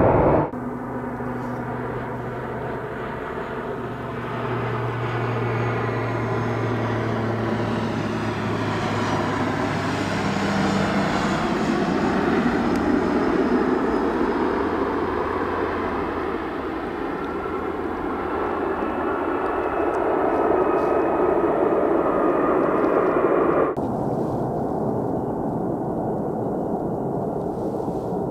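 Jet airliner engines heard as an aircraft passes: a steady rushing jet noise with a low humming tone, slowly shifting in pitch. About 24 seconds in it cuts abruptly to a duller jet sound.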